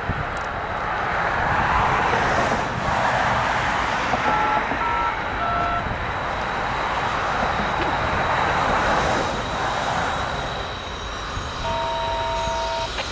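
Wind rushing over the microphone while a distant locomotive horn sounds three short two-note blasts, then a longer blast near the end as the approaching train comes into sight.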